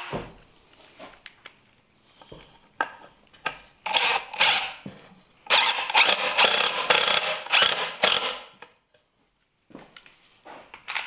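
Cordless driver running screws through pocket holes to join the sides of a wooden box: a few light clicks, then a short burst, then a longer run of about three seconds.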